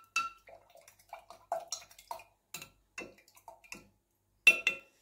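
Spoon clinking in a glass while a drink is stirred: small taps and liquid sounds, then two sharp ringing clinks about four and a half seconds in.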